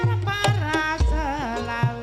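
Javanese gamelan music accompanying an ebeg trance dance: hand-drum (kendang) strokes in a quick rhythm, a deep bass stroke about a second in, and a sung melodic line that slides and wavers over sustained instrument tones.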